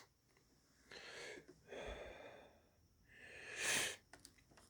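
Quiet breathing close to the microphone, with a louder, hissy exhale about three and a half seconds in.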